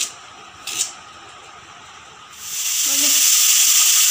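Two sharp cuts of a blade through a raw carrot in the first second. About two and a half seconds in, loud steady sizzling begins: carrot strips frying in hot oil in a wok.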